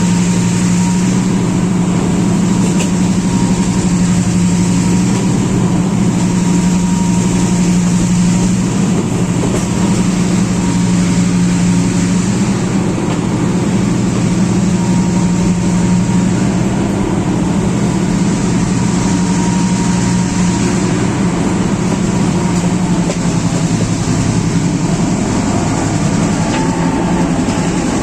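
Sri Lanka Railways Class M6 diesel locomotive's engine running hard at a steady throttle: a loud, even, deep drone.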